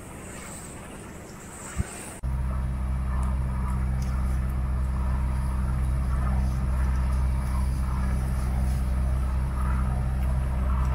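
Wind and water noise with a single click, then an abrupt cut about two seconds in to an engine's steady low drone that runs on unchanged.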